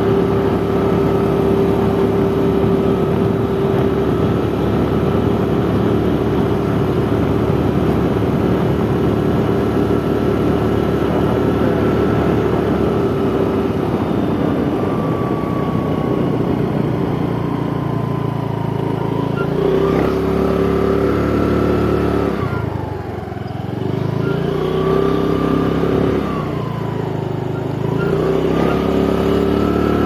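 A motor vehicle's engine running with road noise while driving along at a steady pace. About 22 seconds in, the engine note drops as the vehicle slows, then climbs again, with another brief dip shortly before the end.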